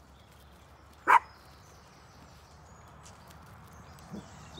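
Small dog giving a single sharp bark about a second in, warning off a lamb that is trying to play with it.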